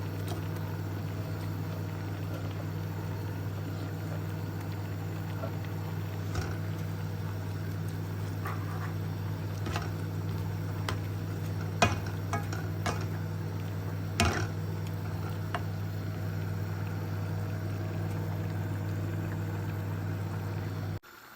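A pot of noodle soup boiling on a stove, a steady bubbling over a low hum, with several sharp clinks of a utensil against the pot, the loudest two about twelve and fourteen seconds in.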